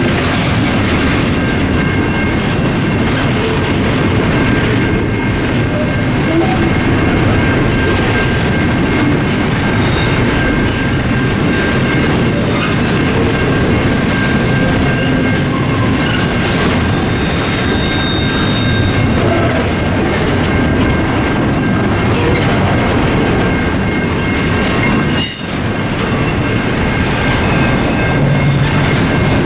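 CSX double-stack intermodal freight train rolling steadily through the crossing, its wheels clacking over the rail joints under a continuous rumble. Over it the crossing's mechanical signal bells keep up a steady ringing.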